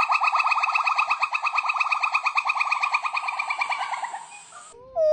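A monkey's rapid trilling call, about ten even notes a second, fading away near the end. A loud high wailing call starts just before the end.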